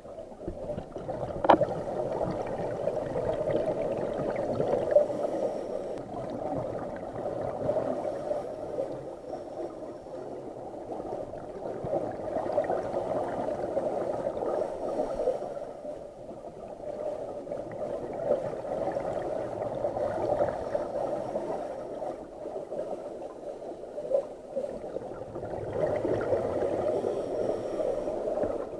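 Scuba regulator exhaust bubbles gurgling underwater, swelling and fading in about six breaths, one every four to five seconds. A single sharp click about a second and a half in.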